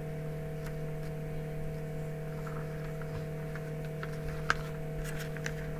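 Steady electrical hum made of a few fixed tones, with a few faint clicks and one sharper click about four and a half seconds in.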